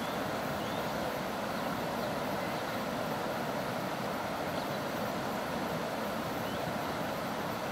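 Ohau River water flowing and rushing steadily, an even, unbroken hiss.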